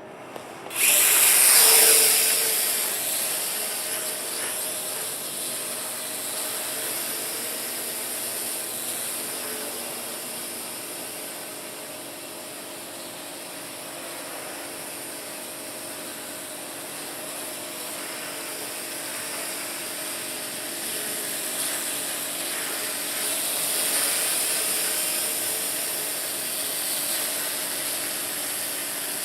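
WL Toys V949 micro quadcopter's motors and propellers spinning up suddenly about a second in, then a steady high buzzing whine as it flies, swelling a little louder for a while later on.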